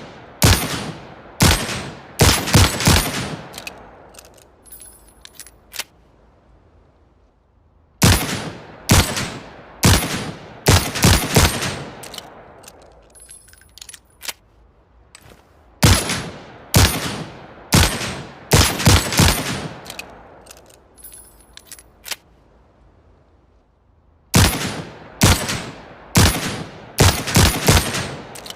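Manurhin MR-73 revolver firing in rapid strings of several shots, each shot sharp with a ringing tail; a new string starts about every eight seconds, four times, with faint light clicks in the pauses between strings.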